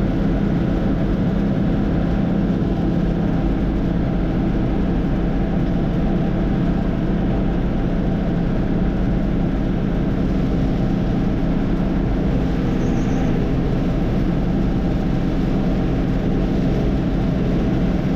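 Heavy farm machine engine running steadily, a constant low drone with no change in speed.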